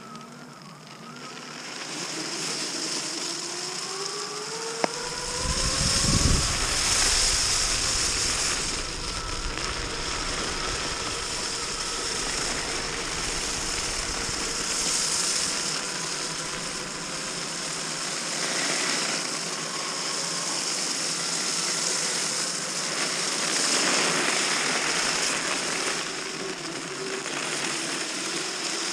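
Electric mountainboard's two brushless motors and belt drive whining, the pitch climbing over the first few seconds as the board speeds up, then drifting up and down with speed. Under it runs a steady rush of wind and wheels on packed snow, with a low rumble about five seconds in.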